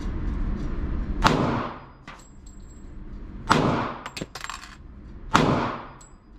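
Three pistol shots from a Colt Defender 1911 in .45 ACP with a 3-inch barrel, about two seconds apart, each ringing out in the indoor range. A low steady rumble runs under the first shot and drops away after it.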